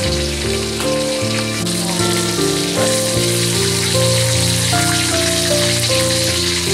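Melodic background music with notes stepping along, over a steady sizzling hiss of fish frying in hot oil in a wok.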